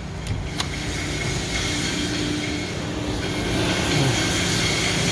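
Steady, noisy din of factory machinery in a steel-working shop, growing louder about a second and a half in, with a single sharp click just after the start.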